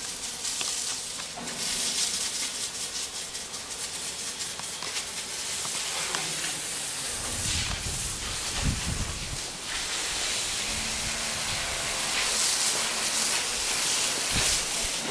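Steady hiss of a soft-wash sprayer putting cleaning solution onto a clay tile roof, with wind buffeting the microphone about halfway through.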